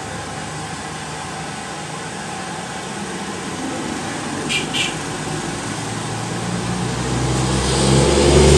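Road traffic passing close by: the engine of a motorcycle tricycle runs past, and a heavy truck's engine comes on louder toward the end. Two short high chirps sound about halfway through.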